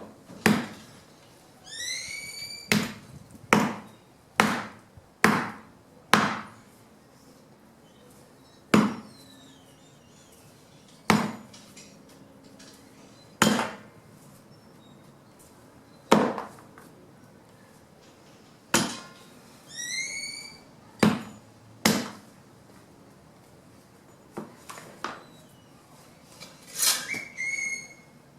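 Wood being chopped by hand into chips: single sharp chopping strikes into branch wood, about fifteen of them, irregularly spaced one to two and a half seconds apart. Three times a short whistled call rises in pitch over the strikes.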